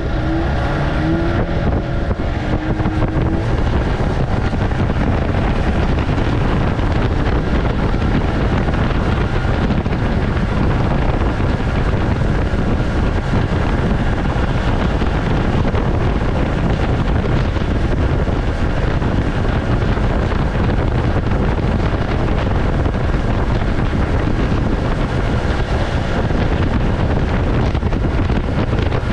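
1967 Evinrude Fastwin 18 hp two-cylinder two-stroke outboard motor running steadily at speed, pushing a small aluminum boat into the wind. Wind buffets the microphone throughout.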